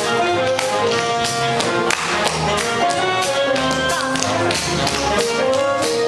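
Live big band swing music, saxophones and brass holding notes over a steady beat, with a rapid run of crisp taps from tap dancers' shoes on a wooden floor.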